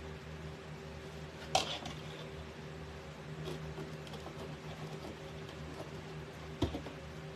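Stiff deco mesh ribbon being handled and folded on a tabletop, with a sharp click about one and a half seconds in and a duller one near the end, over a steady low hum.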